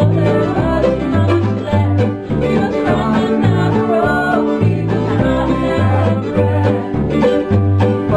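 Acoustic bluegrass band playing: upright bass walking between notes under strummed acoustic guitar, with banjo and mandolin picking.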